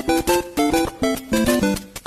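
Upbeat background music: a quick melody of short, separate notes, several a second.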